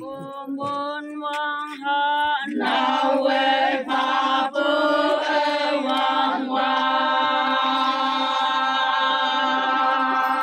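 Group of Naga women chanting a traditional festival song in unison: one voice sings a few short phrases, then the whole group joins about two and a half seconds in, and from about six and a half seconds they hold one long note.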